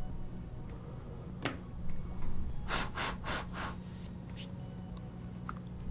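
Faint scratchy handling noises at a fly-tying bench, with a quick cluster of short rasps about three seconds in, over a steady low hum.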